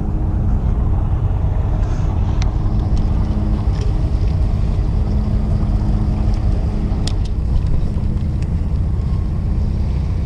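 Fishing boat's engine running steadily, a constant low drone and hum, with a couple of faint clicks over it.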